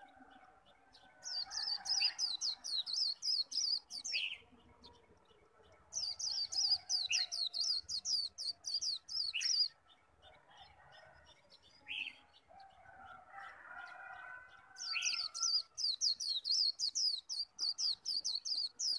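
A caged white-eye singing the rapid, high 'líu' song in three bursts of several seconds each, every burst a quick run of short descending notes. Single lower chirps come between the bursts.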